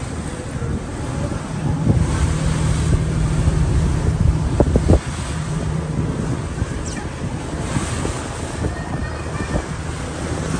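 Wind buffeting the microphone on the bow of a moving ferry, over water rushing past the hull and the boat's low, steady engine drone. A few hard gusts hit the microphone just before the middle.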